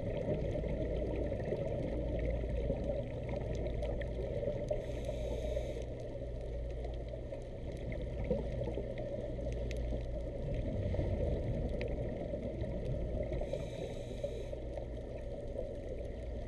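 Steady muffled water noise with a low rumble and gurgling, with a brief hiss about five seconds in and again about fourteen seconds in.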